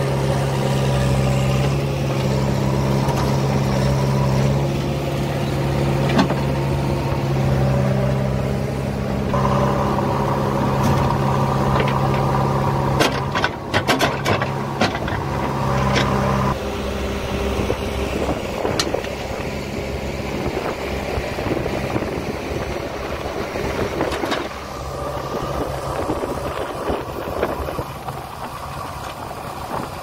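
JCB backhoe loader's diesel engine running under load as it digs and lifts wet soil, a steady note that rises about nine seconds in. A few sharp clanks come around thirteen to fifteen seconds in, and the engine note drops to a rougher, lower running sound soon after.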